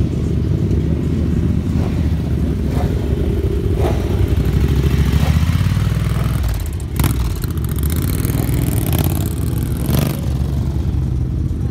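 Motorcycle engines running, with a red Ducati's V-twin moving off close by, loudest about five seconds in. Two sharp clicks come near seven and ten seconds.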